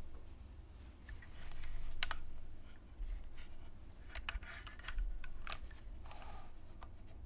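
Mechanical keyboard typing, sparse and irregular: a handful of keystrokes with pauses between them. The board is a Merisi Works 500C/M prototype with an aluminium top-mount plate, GMK Dolch keycaps and lubed, modded Cherry MX2A Black linear switches.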